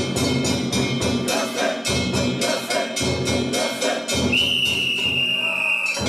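Kunchi float music: steady drum beats with fast, bright metal gong strikes over them. About four seconds in, one long steady whistle blast from a float handler's whistle is held for under two seconds.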